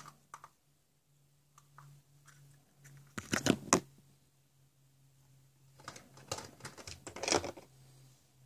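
Hard plastic toys and capsule eggs clattering and rustling under the hands as they rummage in a bin of surprise eggs, in two clusters of quick clicks, about three seconds in and again from about six to seven and a half seconds. A faint steady low hum runs underneath.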